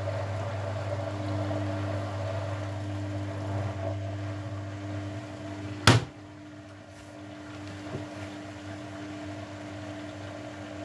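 Grundig Mini 14 washing machine's drain pump humming steadily with a low drone. About six seconds in there is one sharp click, after which the hum is quieter.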